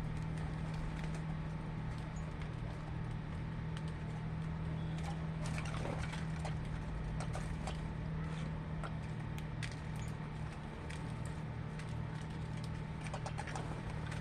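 Birds making scattered short chirps and clicks over a steady low hum.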